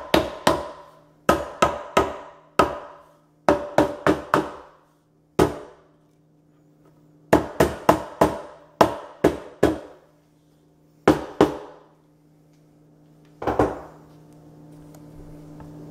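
Sharp knocks on the IKEA Micke drawer unit's upright side wall, seating it down onto the dowels and anchors in the base panel. The blows come in quick clusters of two to four, with gaps between them, and each one rings briefly.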